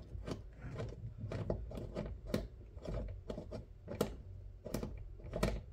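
Hand rivet-nut tool being unscrewed from a freshly crimped threaded insert: an irregular series of light metallic clicks and short scrapes, about one or two a second, as the tool's threaded mandrel is turned.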